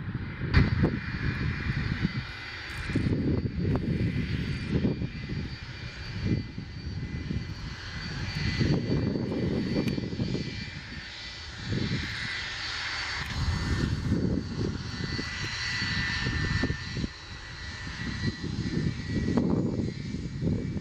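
Boeing 757-200 airliner's jet engines running as it rolls along the runway: a steady high whine over an uneven low rumble that swells and fades.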